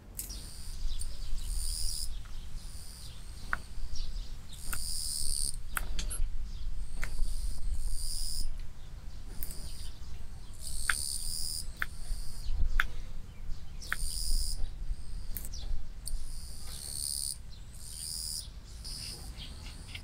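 A tiny knife chopping vegetables on a small wooden cutting board, with scattered sharp taps of the blade against the wood. High-pitched chirping repeats in the background every second or so.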